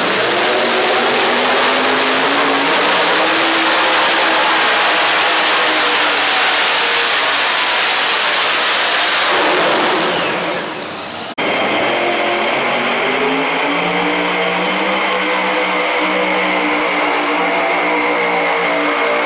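Competition pulling tractor's engine at full throttle dragging the weight sled, loud, its pitch climbing. About eleven seconds in the sound cuts off abruptly to another loud engine run, its pitch rising slowly.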